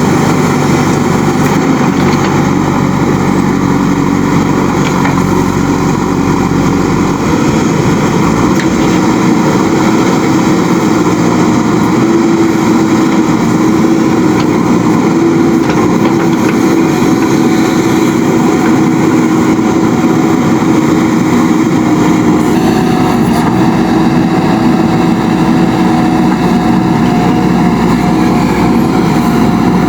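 A machine motor runs steadily with a constant hum that wavers slightly in pitch. Its tone shifts about 22 seconds in.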